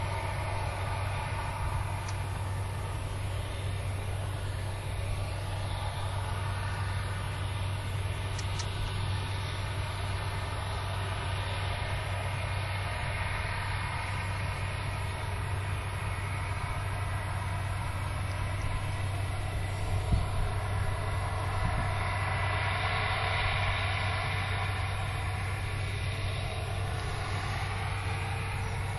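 Large harvest-machine engine running steadily with a constant low drone, swelling slightly about three-quarters of the way through, with a single knock shortly before.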